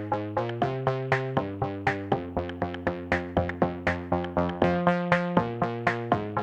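Electronic background music: a steady beat with synthesizer chords that change about every second.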